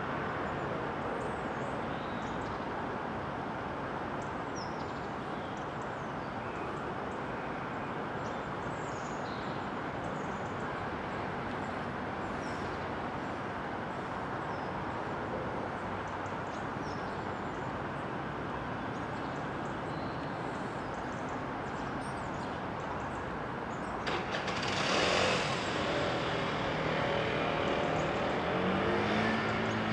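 A steady wash of distant town and railway noise with faint bird chirps. About 24 seconds in a burst of steam hiss starts, followed by several held tones sounding together: the chime whistle of A1 Pacific steam locomotive 60163 Tornado, signalling departure.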